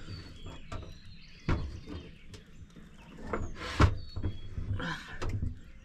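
Knocks, clicks and scraping as the metal parts of a small portable propane camp stove are handled and twisted tight. There are a few separate knocks, the loudest a little before four seconds in.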